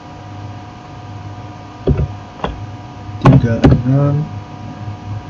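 A few computer keyboard keystrokes, about four sharp clicks in the second half, typing digits of an IP address, over a steady background hum.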